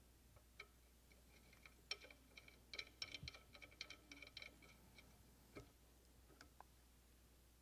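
Faint, quick small clicks and ticks as the boiler cap on an Accucraft Dora live-steam locomotive is unscrewed by hand. The clicks come mostly from about two to four and a half seconds in, with a few stray ticks after.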